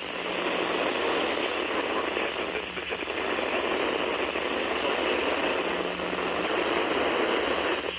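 Radio static hiss from a weather radio receiver on a noisy signal, with a steady low hum underneath, in the gap after the alert data bursts and before the test message is read.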